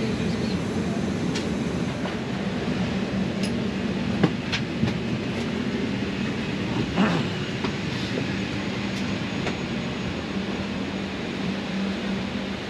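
Steady mechanical hum and rumble, with scattered clicks and two louder knocks about four and seven seconds in.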